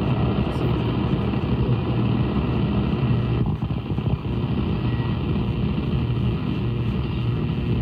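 Static and hiss from an SDRplay RSP2 receiver's audio output as it is tuned down across the low end of the AM band between stations, with a steady low hum underneath.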